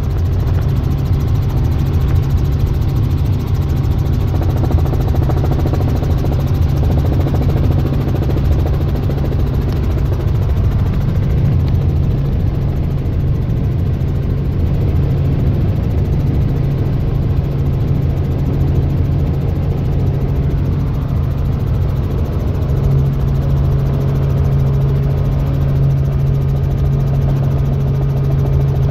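Small helicopter's engine and rotors droning steadily in flight, heard from inside the cabin: a deep, even hum under a wash of noise, growing a little stronger about 23 seconds in.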